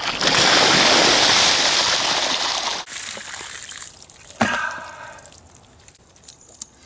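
Ice water pouring from a plastic tub and splashing down over a seated person for nearly three seconds, then water dripping and trickling off him. About four and a half seconds in comes a knock, then a short groan.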